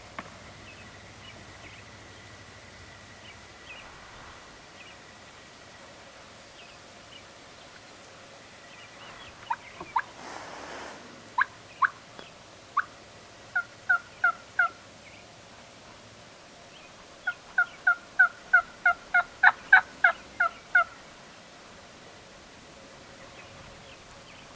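Gould's wild turkeys calling in short, sharp notes: a pair about ten seconds in, then a few single notes, a run of four, and later a fast run of about a dozen notes, several a second.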